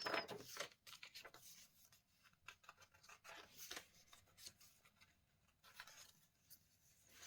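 Faint rustling and brushing of paper as journal pages and tags are handled and turned, a scatter of short scrapes, loudest in the first second.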